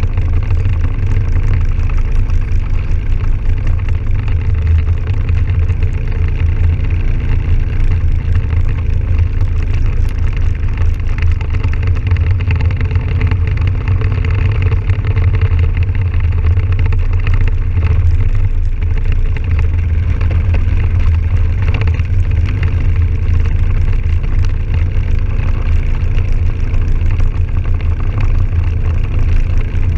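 Can-Am Outlander 1000 XT-P ATV's V-twin engine running steadily at cruising speed, a strong low drone, with wind noise on the microphone.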